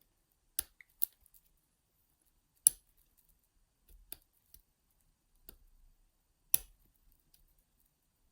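Lock pick and tension tool working in a small all-brass pin-tumbler padlock, giving scattered sharp metallic clicks, the loudest about two and a half seconds in.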